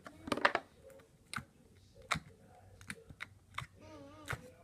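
Irregular sharp clicks and pops from slime being handled in its plastic tub, a quick cluster at first and then single clicks every half second or so.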